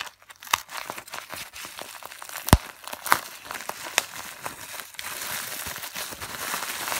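Plastic bubble wrap being cut open and pulled apart by hand: crinkling and rustling with scattered sharp crackles and one loud snap about two and a half seconds in, turning to denser steady crinkling near the end.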